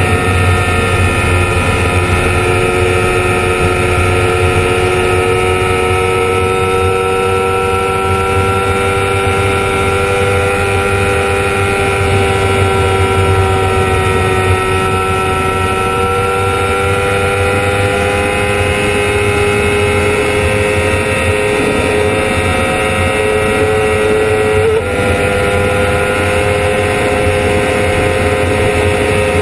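Honda CBR1000RR's inline-four engine running hard near 12,000 rpm, its pitch climbing slowly as the bike accelerates toward 300 km/h. There is a quick upshift into sixth gear about 25 seconds in. Wind rush runs underneath.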